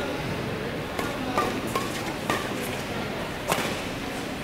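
Badminton hall ambience: a steady background din broken by about five sharp knocks and clicks, the loudest about three and a half seconds in.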